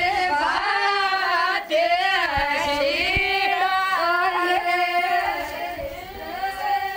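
Female voices singing a folk song, holding long notes that waver and bend in pitch.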